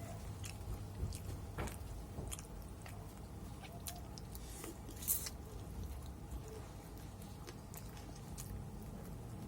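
A person chewing and biting fried chicken close to the microphone, with scattered small crunches and mouth clicks. There are louder crunches about a second and a half in and again about five seconds in.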